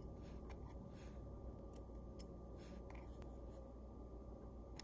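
Faint small clicks and scratches of brass tweezers and fingers working on a pocket-watch movement clamped in a holder, with a sharper click near the end, over a steady faint hum.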